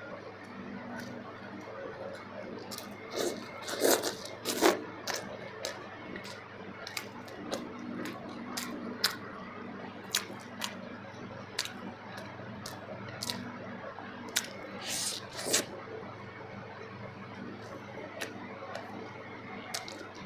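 Close-miked eating of kuzhi paniyaram with chutney and gravy: scattered wet mouth clicks and smacks of chewing, with louder bursts about 4 seconds in and again near 15 seconds. A faint steady hum runs underneath.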